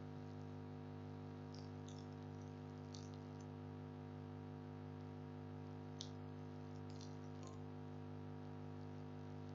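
Steady low electrical hum with a few faint, scattered clicks, the loudest about six seconds in.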